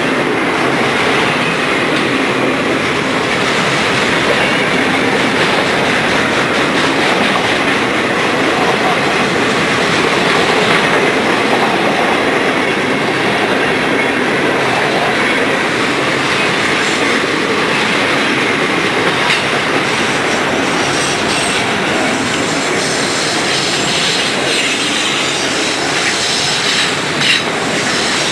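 Freight cars (autoracks, boxcars and tank cars) rolling past close by: a loud, steady rush of steel wheels on rail, with a few sharp knocks near the end.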